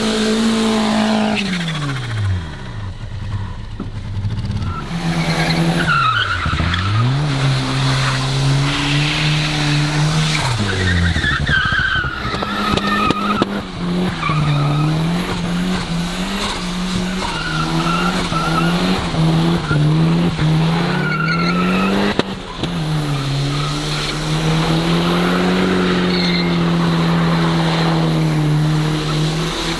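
Older Volvo estate car doing burnout donuts on wet tarmac: the engine is held at high revs, falling off and climbing again as the throttle is lifted and floored, while the spinning rear tyres squeal and skid.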